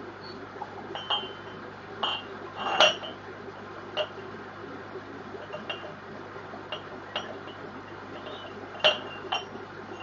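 Irregular light clinks against aquarium glass, each with a short glassy ring, about a dozen of them, the loudest about three seconds in and near the end, over a steady low hum.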